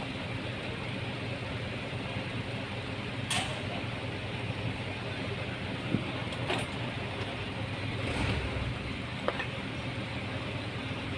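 A few sharp metallic clicks and knocks from handling brake pads, pins and clips at a four-piston disc brake caliper, spread over several seconds against a steady background hum.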